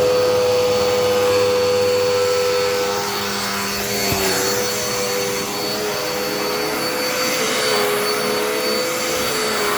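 Dirt Devil Endura Reach bagless upright vacuum running steadily while vacuuming a floor, a constant motor hum and whine that eases slightly about three seconds in. It is working well.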